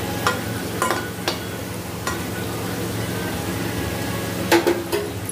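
Potato pieces sizzling in ghee in a metal kadhai while a metal spatula stirs them, clinking and scraping against the pan a few times, with a quick cluster of knocks near the end.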